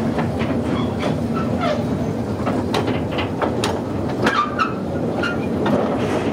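A train running on rails, with steady rolling noise and irregular clicks and clacks from the wheels and track.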